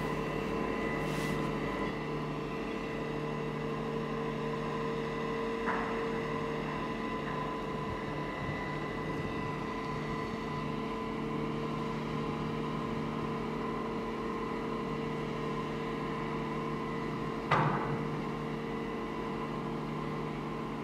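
Diesel power pack of a Goldhofer PST/SL-E self-propelled modular trailer, a 207 kW Cummins, running with a steady humming drone of several constant tones. Two sharp metallic knocks cut through it, a light one about six seconds in and a louder one late on.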